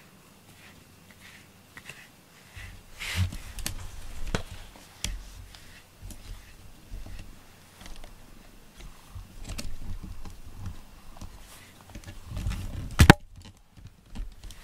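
A grooming brush rubbing through a cat's fur, with soft rustling and irregular handling bumps, and one sharp click about 13 seconds in.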